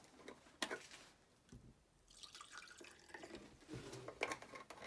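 Acetone poured onto a polystyrene foam block: liquid dripping and trickling, with a click about half a second in and a faint hiss from about two seconds in as the foam dissolves.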